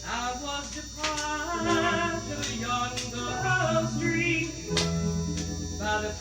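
A recorded pop ballad: a woman sings with an instrumental backing, the melody moving in long held notes.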